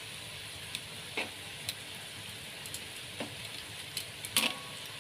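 Tempeh braising in spice paste (ungkep), sizzling steadily, with several short knocks and scrapes of a utensil stirring it, the loudest about four and a half seconds in.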